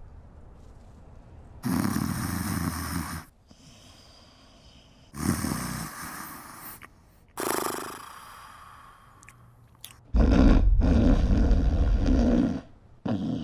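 A man snoring loudly during sleep apnoea: four heavy snores a second or two apart, the third short, the last the longest and loudest.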